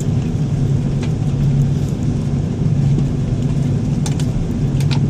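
Steady low rumble of a Boeing 777 rolling on the ground just after landing, heard inside the cabin. The drone swells and fades every second or so, with a few faint rattles.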